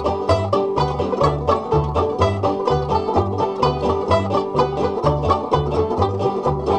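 Background music: a banjo-led bluegrass instrumental, quick plucked notes over a steady bass line that alternates between two low notes.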